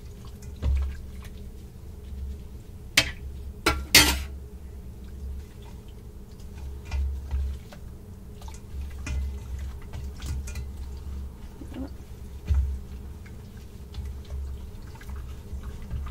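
Wet squishing and squelching of gloved hands massaging cuttlefish pieces in a thick marinade in a stainless steel bowl, with a few sharp knocks against the bowl about three to four seconds in. A steady low hum runs underneath.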